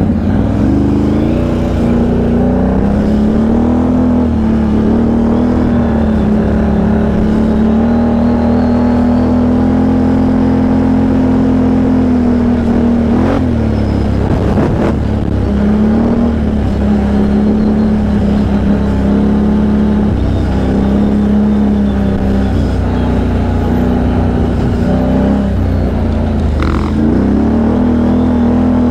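Can-Am Outlander XMR 1000 ATV's V-twin engine running under throttle while riding; its pitch climbs at first, holds fairly steady, drops back several times and climbs again near the end. A few short knocks come around the middle.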